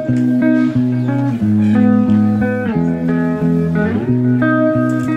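Instrumental background music: a plucked guitar melody over held low bass notes, the notes changing about twice a second.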